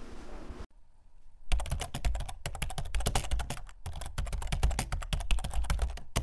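Keyboard typing sound effect: a fast, irregular run of clicks that starts about a second and a half in, after a brief near-silent gap.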